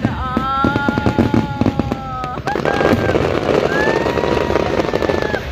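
Fireworks going off: a fast run of bangs over the first couple of seconds, then dense crackling, with music playing over them.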